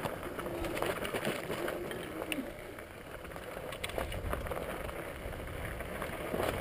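Hardtail electric bike rolling over loose gravel and cinder: a steady tyre crunch and rumble, with frequent clicks and knocks from stones and the rattling frame. A faint steady whine is heard during the first couple of seconds.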